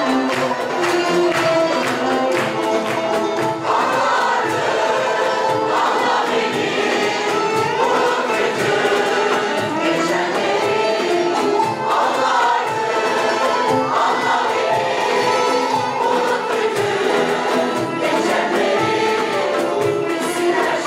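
A mixed choir sings a Turkish song medley with a small traditional instrumental ensemble (violin, kanun, accordion, frame drum) keeping a steady beat, and choir members clap along near the start.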